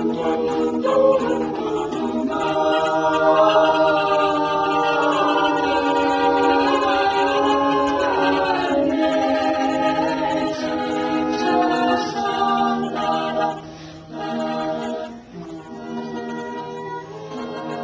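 Collegiate a cappella group singing unaccompanied in several-part harmony, voices holding and shifting chords. The singing thins and drops in level briefly about three-quarters of the way through, then carries on.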